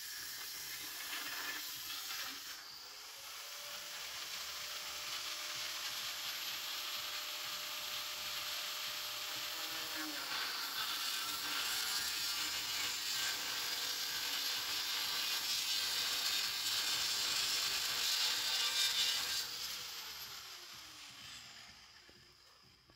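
Angle grinder with a thin cut-off disc cutting through a steel bike frame, a steady high grinding hiss. Near the end the grinder is released and winds down, the sound dying away with a falling pitch.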